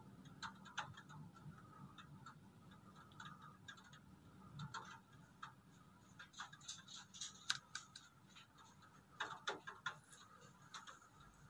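Faint, irregular tapping of raindrops during a thunderstorm, scattered single ticks coming thicker in short clusters.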